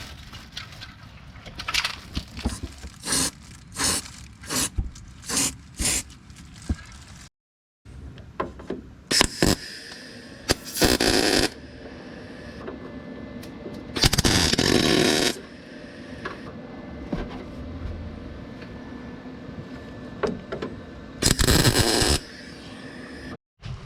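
Metalworking on a car body's rusted wheel-arch panel: a run of short harsh bursts, about two a second, then three longer bursts of a second or so each, with abrupt cuts between sections.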